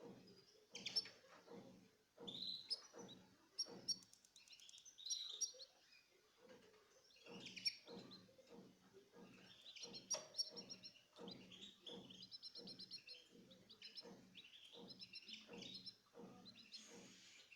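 Kept birds chirping and calling in many short, high notes, over a steady run of soft low thuds repeating a few times a second.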